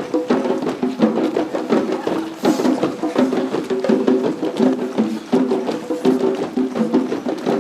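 A group of drummers playing a fast, continuous rhythm: many quick strokes, each ringing briefly at one of a few different pitches.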